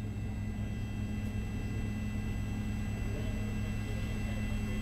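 Steady drone of a news helicopter in flight, its engine and rotor heard from inside the cabin over the reporter's open microphone.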